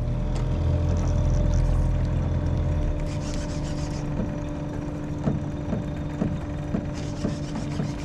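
A boat motor running steadily: a low hum, heavier for the first three seconds and then lighter. From about five seconds in, light ticks come about twice a second.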